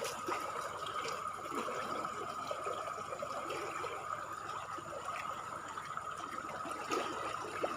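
River water flowing steadily, an even rushing trickle.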